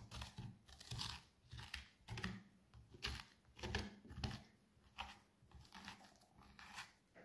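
Metal spoon scraping the seeds and stringy fibres out of a halved pumpkin: a run of short, faint scraping strokes, about two a second.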